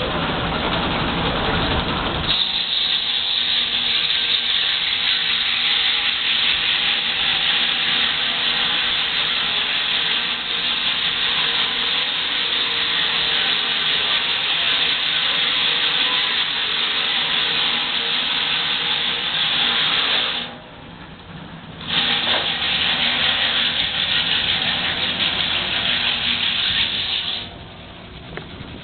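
Steam-engine-driven sawmill running, its saw blade cutting through a log with a loud, high-pitched noise that starts about two seconds in. The noise breaks off briefly around three-quarters through, resumes, and stops near the end.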